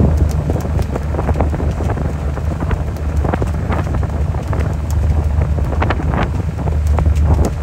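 Wind buffeting the microphone: a steady low rumble with many short crackles scattered through it.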